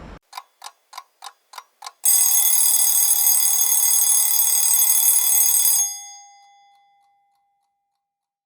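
Alarm clock: six ticks, about three a second, then its bell rings loudly for nearly four seconds and stops, the bell's tone dying away afterwards.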